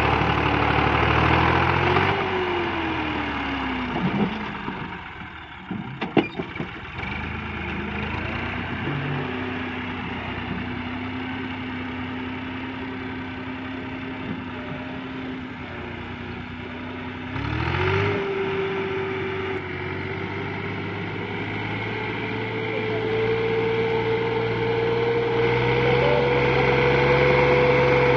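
Massey Ferguson 260 tractor's three-cylinder diesel engine labouring under a heavily loaded trolley. Its revs sag in the first few seconds, with a few sharp knocks about six seconds in; it then runs steadily before revving up about eighteen seconds in and climbing slowly from there.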